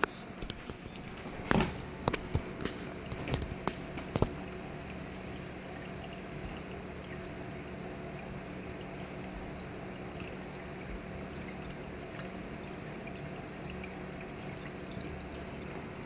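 Water trickling and dripping in a fish tank over a steady low hum, with a few sharp clicks in the first four seconds.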